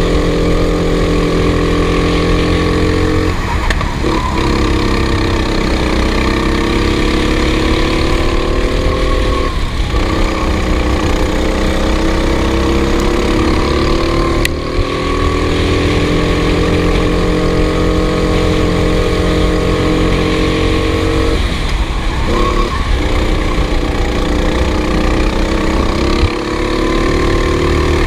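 Racing engine running hard at high revs, its pitch climbing slowly for several seconds and then dropping sharply four times, as the throttle is lifted for corners and opened again.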